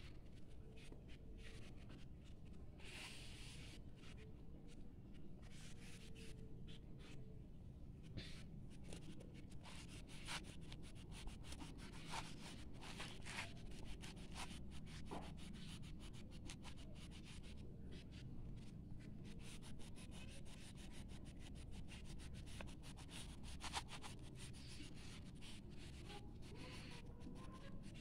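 Pastel crayon rubbing and scratching on notebook paper in many short, quick strokes, quietly.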